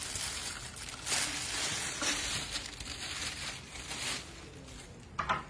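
Irregular plastic crinkling and rustling as a short anaesthesia breathing-circuit tube is picked up and handled.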